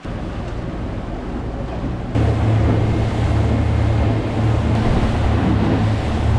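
Honda outboard motor driving a small boat along, a steady low drone with water and wind noise over it, getting louder about two seconds in.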